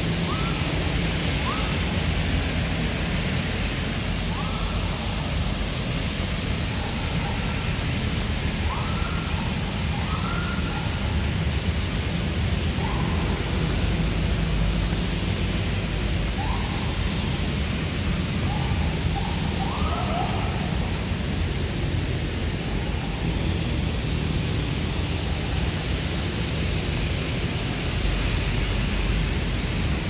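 Steady rain falling on paving, an even hiss with a low rumble underneath.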